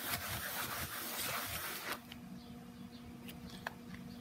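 A baby wipe rubbed back and forth over the coated canvas of a vintage Louis Vuitton toiletry bag makes a dense, scratchy rustling that stops abruptly about two seconds in. After it come a few light handling clicks over a faint steady hum.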